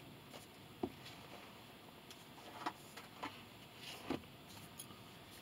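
A few faint taps and light rustling from hardcover books being handled, set down and picked up on a table.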